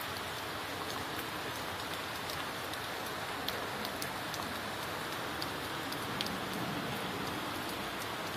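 Steady rain falling, with scattered sharp ticks of individual drops striking nearby surfaces.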